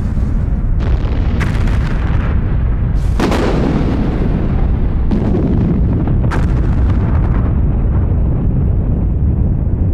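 Massive explosions with a continuous deep rumble, broken by several sharp blasts, the biggest about three seconds in. After that only the low rumble remains: mines and an artillery barrage going off.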